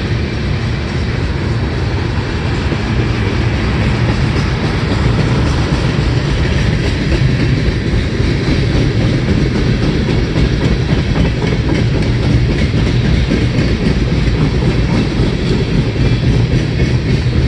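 CSX freight train's cars rolling past: steady noise of steel wheels on the rails.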